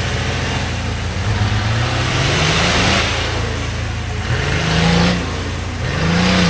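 Off-road vehicle's engine revving, its pitch rising and falling several times as it accelerates under load.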